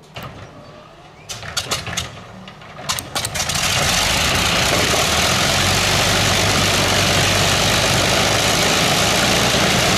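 Avro Lancaster's Rolls-Royce Merlin V12 aero engine starting: irregular coughs and pops for about three seconds, then it catches at about three and a half seconds and runs steadily.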